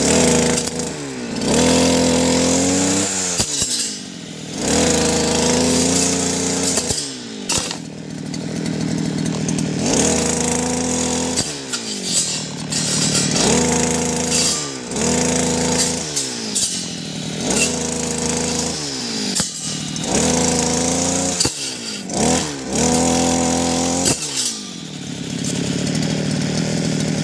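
52cc two-stroke petrol brush cutter with a toothed metal saw blade, revved up and let off again and again, about every two seconds, as it cuts through woody stems. Its engine note climbs at each burst and slides back down. Sharp clicks come as the blade strikes stems.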